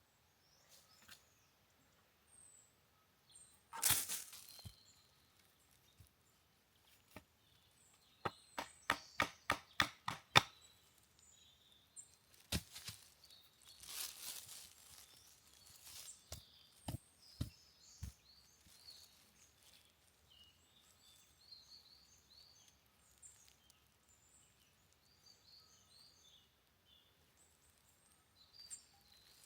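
A quick run of sharp knocks, about eight in two and a half seconds, then a few single knocks and two short rustling bursts. Small birds chirp throughout.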